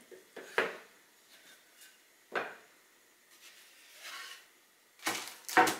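Wooden roof boards of a Warre beehive knocking and clacking against each other as they are handled and fitted together: a sharp knock about half a second in, another around two and a half seconds, a brief scraping rub near four seconds, and two louder knocks near the end.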